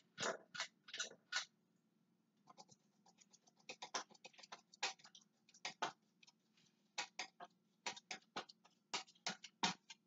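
Hampton Bay Tripoli 48-inch ceiling fan slowing down after being switched off by its pull chain, giving faint irregular clicks and ticks, a few a second in clusters, over a low steady hum.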